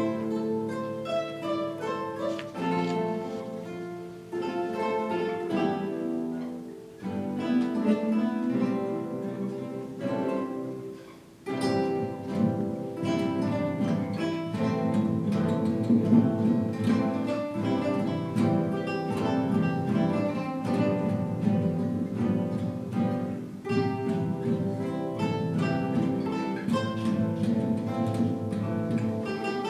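Classical guitar ensemble playing together, many plucked and strummed guitars in chords and melody. The playing thins briefly at phrase ends, then swells fuller about a third of the way in.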